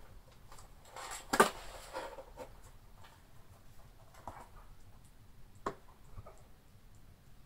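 A kitten licking lickable cat-treat paste from a small ceramic saucer: soft, irregular clicks and smacks of tongue against the dish. A sharper knock comes about a second and a half in, with smaller ones later.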